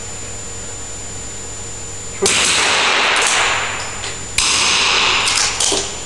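.22 smallbore target rifles firing on an indoor range: two shots about two seconds apart, each a sharp crack followed by about a second of loud echo, then a couple of small clicks.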